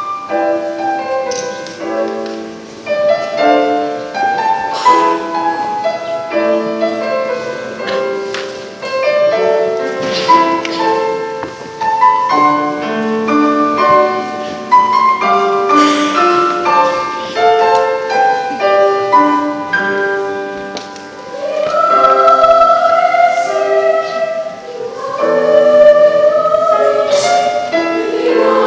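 Mixed three-part choir singing a Japanese choral piece with piano accompaniment. The voices swell louder about three-quarters of the way through.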